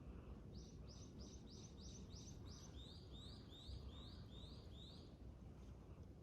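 A small wild songbird singing faintly through an open window. It gives one phrase of about a dozen quick, evenly spaced notes, a run of higher notes and then a run of slightly lower ones, over a low background rumble.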